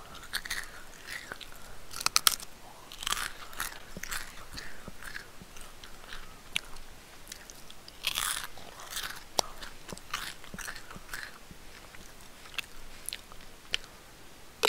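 A person biting and chewing food, with irregular sharp clicks and short bursts of noise.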